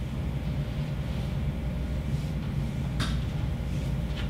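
Room tone: a steady low hum, with a faint click about three seconds in and another just before the end.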